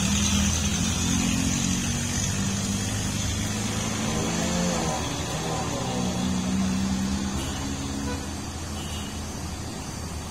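Road traffic passing: several car, truck and motorcycle engines running together as a steady low hum. About four to six seconds in, one engine's pitch rises and falls a few times. The sound slowly fades toward the end.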